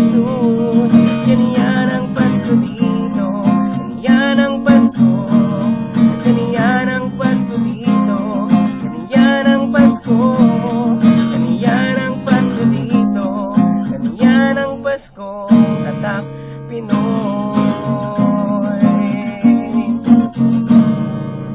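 A man singing a Tagalog Christmas carol while strumming an acoustic guitar.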